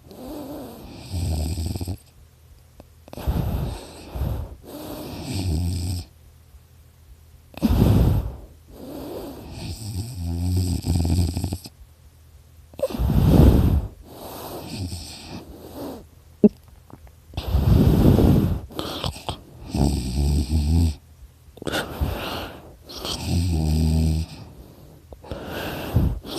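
A sleeping person snoring, a rattling snore or an airy breath every two to three seconds, several with a high whistling through the nose. The sleeper puts the snoring down to extra tissue in the throat.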